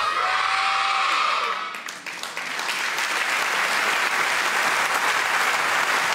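A music track ends, and about two seconds in a large audience starts applauding and keeps up a steady clapping.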